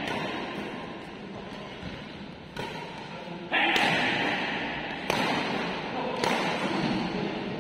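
Badminton rackets striking a shuttlecock four times in a rally, sharp cracks about one to one and a half seconds apart. Each hit rings out in the echo of a large hall.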